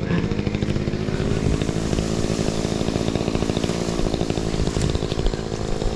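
Makita chainsaw running at a steady speed throughout.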